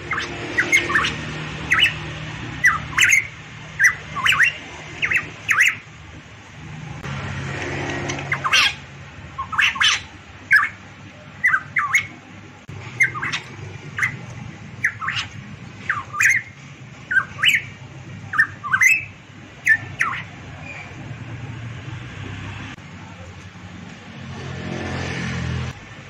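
Variable pitohui calling: a long series of short, sharp whistled notes, roughly one a second, which stops about twenty seconds in. A low steady hum runs underneath.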